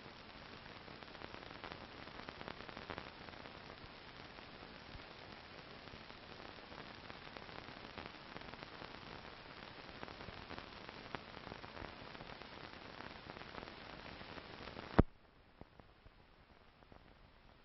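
Faint hiss and crackle of an old film's optical soundtrack with no sound recorded on it. A single sharp pop about 15 seconds in, after which the hiss drops much quieter.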